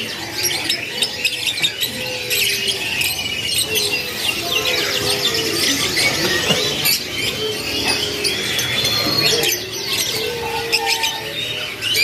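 A cage full of domestic canaries chirping and singing together: dense, overlapping high chirps and quick trills without a break. These are young canaries already in full song.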